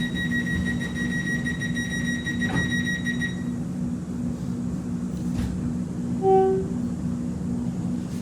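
Inside an X'Trapolis 2.0 electric suburban train on the move: a steady low hum from the train's electrical equipment, with a high steady whine that cuts off about three seconds in. About six seconds in comes one short, loud pitched tone.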